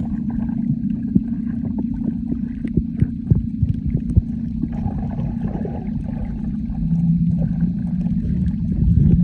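Underwater audio from a camera held under the surface over a coral reef: a steady low hum and rumble, with frequent sharp clicks and crackles. A second low tone joins about two-thirds of the way in.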